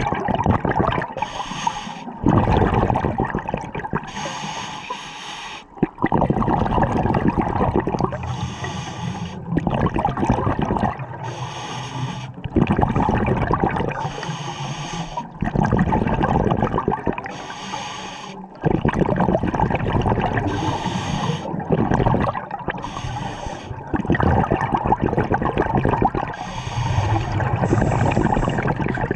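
Scuba diver breathing through a regulator underwater: short inhale hisses alternate with longer rushes of exhaled bubbles, repeating every few seconds.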